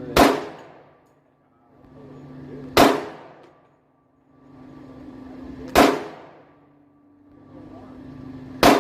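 Four single shots from a Hi-Point 10mm semi-automatic pistol firing jacketed hollow-point rounds, spaced about three seconds apart, each a sharp crack with a short ring after it.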